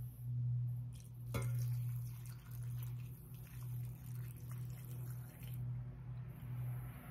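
Pickling brine poured from a saucepan through a metal canning funnel into a glass jar of sliced red onions: a soft trickle and splash of liquid, with a light clink about a second and a half in. A steady low hum runs underneath.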